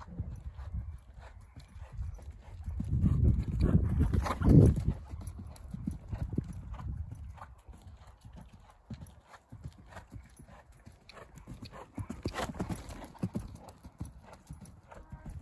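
Hoofbeats of a young grey horse moving in a circle on the lunge over a sand arena, a steady run of soft thuds. They grow louder for a couple of seconds about three to five seconds in.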